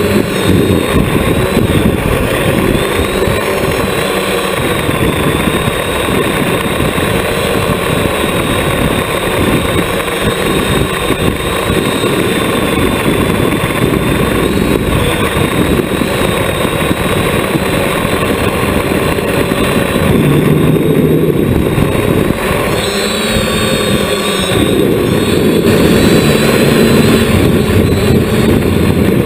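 Multirotor drone's brushless motors and propellers whirring loudly and continuously, heard from a camera mounted on the craft, the pitch drifting up and down with throttle changes.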